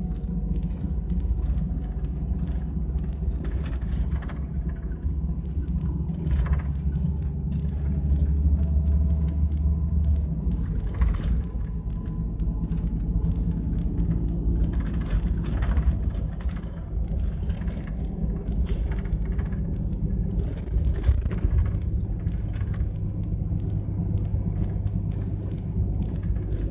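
City bus heard from inside the passenger cabin while driving: a steady low engine and road rumble, with short knocks and rattles every few seconds.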